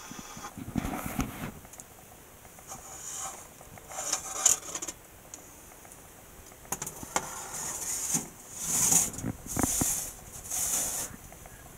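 A cast iron pan being put under the broiler: a series of metal scrapes, rattles and clunks, with a few sharp knocks about seven seconds in and the loudest scraping near the end.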